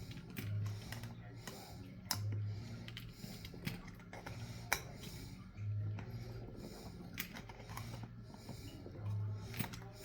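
Scattered light clicks and taps, as of small metal parts of an air horn being handled and fitted, with a short low hum coming back every two to three seconds.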